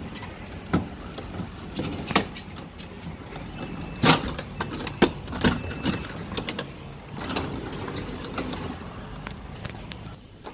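Handling noise from the refrigerator being wiped down and closed up: scattered knocks and clicks over rubbing, the loudest knocks about two and four seconds in. Two short high tones come around the middle.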